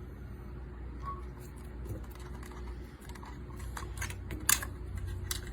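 Scattered small plastic clicks and taps from a cockatiel pecking at a computer optical mouse, coming more often in the second half with the loudest about four and a half seconds in, over a steady low hum.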